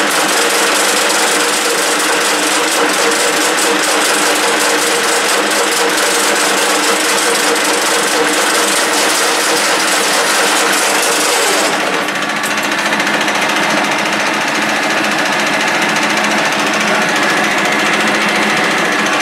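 A 1K62 lathe running steadily, a constant mechanical hum with a few steady tones under a high hiss. About two-thirds of the way through, the hiss cuts off suddenly and the machine runs on a little quieter.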